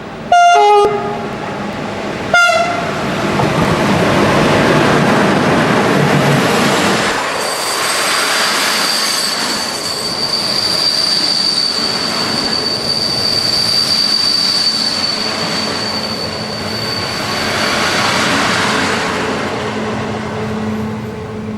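A train horn gives two short blasts, then a train passes loudly, with a steady high-pitched squeal from the wheels through the middle of its passing.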